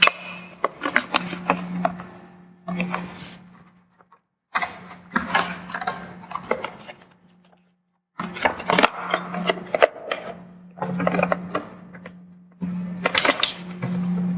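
Plastic wiring harness and connector clips being handled and pressed into place on a Prius hybrid battery pack: a run of clicks and rubbing over a steady low hum, breaking off abruptly to silence twice.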